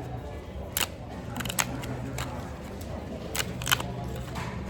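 Paper pull-tab bingo tickets being torn open by hand: a few short, sharp paper snaps and rips, spaced irregularly.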